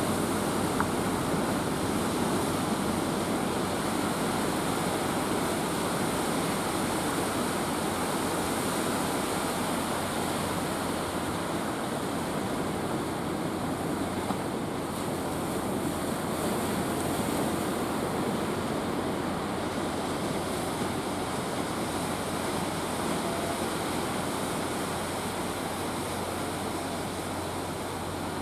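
Steady rush of heavy surf breaking against the shore.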